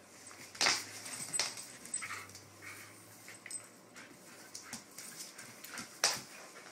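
Two dogs play-wrestling: short whimpers and yips among irregular scuffling sounds, the sharpest about half a second in, at about a second and a half, and near the end.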